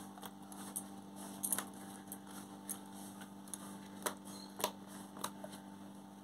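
Soft, scattered clicks and taps of a hand working lemon juice and salt into whole fish on a plate, a few sharper ticks among them, over a faint steady hum.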